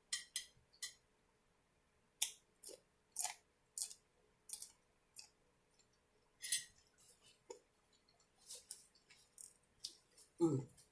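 Crispy bacon being chewed close to the microphone: a run of short, sharp, irregular crunches, a few each second, with a brief hum near the end.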